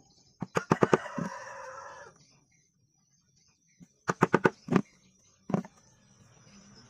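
Chickens: a rooster crows once, starting about half a second in and held for over a second. Then a run of short clucking calls comes around four seconds in, and one more near five and a half seconds.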